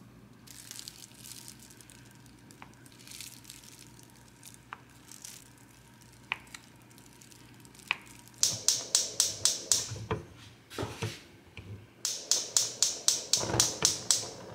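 A knife slices through a block of Spam, ticking on the cutting board about every second and a half. Then comes the loudest sound: a gas stove's igniter clicking rapidly, about six clicks a second, in two runs separated by a short pause.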